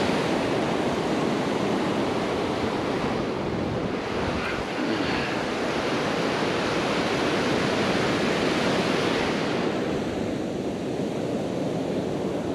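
Rough Atlantic surf breaking and washing up the beach: a steady rush of waves.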